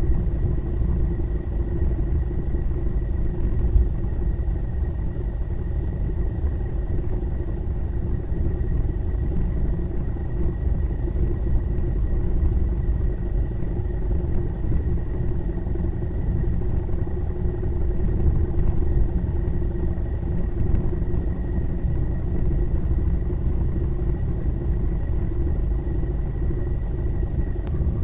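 Motor vehicle cruising at steady speed: an even low rumble of engine, road and wind noise, with a faint steady high whine.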